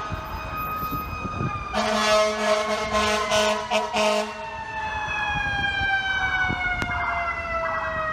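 Fire engine siren and air horn on a city street: several loud horn blasts in the first half, then a siren wail whose pitch slowly falls as it winds down.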